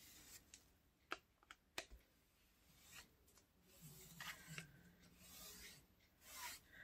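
Near silence, with faint handling noises: a few light clicks in the first two seconds, then soft rubbing sounds in the second half.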